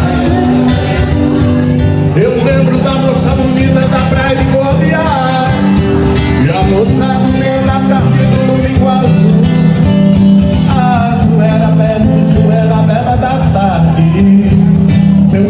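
Music: a song with a sung melody over guitar accompaniment, playing steadily at full volume.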